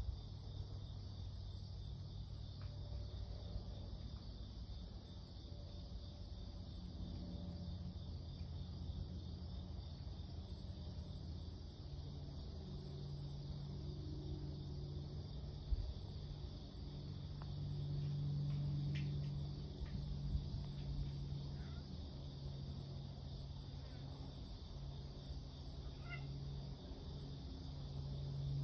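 Outdoor countryside ambience: insects chirping steadily in a fast, even rhythm high up, over a low steady hum that grows louder past the middle, with a few faint short calls.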